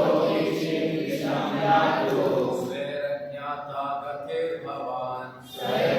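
A group of voices chanting a verse together, with held notes and a short break near the end before the chant picks up again.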